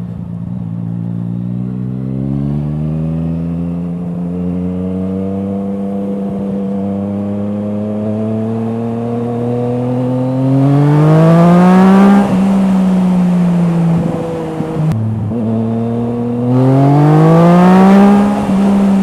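Yamaha MT-09's three-cylinder engine through an Akrapovič exhaust, pulling with slowly rising revs for the first ten seconds. It then accelerates hard twice, about ten and sixteen seconds in, the pitch climbing steeply each time before falling away, with a short break in between.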